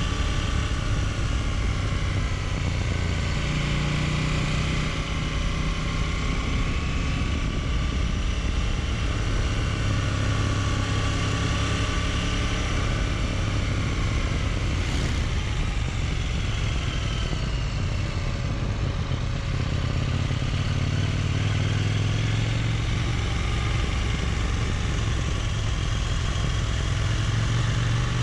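Motorcycle engine running at moderate road speed, heard from the rider's seat over wind and road noise; its note rises and falls with the throttle.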